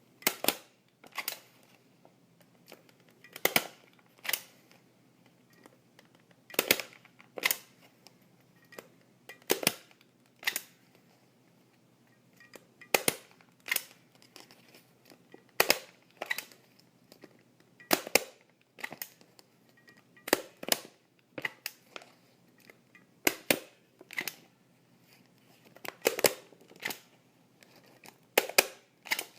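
Common office stapler stapling papers together, over and over: each staple gives a sharp metallic click, mostly as a quick pair of clicks under a second apart, with a new staple about every three seconds.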